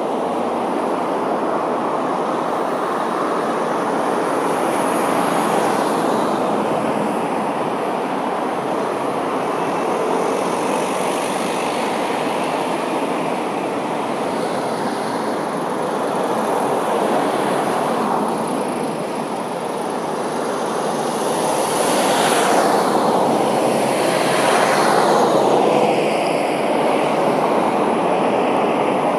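Steady road traffic noise: cars and vans running and passing along a busy street. Louder pass-bys come about three-quarters of the way through, their whoosh falling in pitch as they go by.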